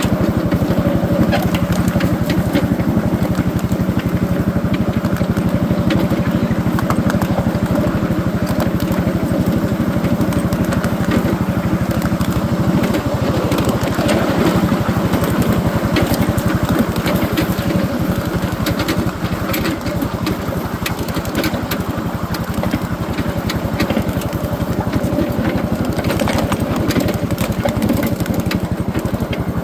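Small engine of a ride-on backyard-railroad train running steadily as the train rolls along the track, with scattered clicks and rattles from the cars.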